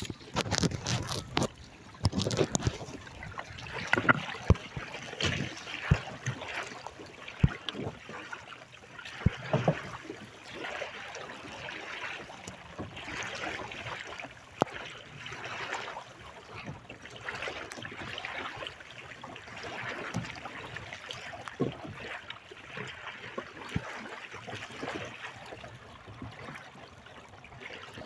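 Water splashing and gurgling along the hull of a sailing kayak as it moves under sail, with a few sharp knocks, mostly in the first half.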